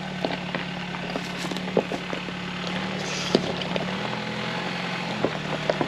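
2024 Toyota Tacoma TRD Off Road engine running steadily at low speed in four-wheel-drive low while crawling over loose rocks, with scattered sharp cracks and knocks of rocks under the tyres.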